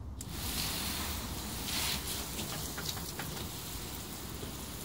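Water hissing steadily from a garden-hose spray nozzle as it sprays onto a dog's thick coat and wet brick paving, switched on a moment in.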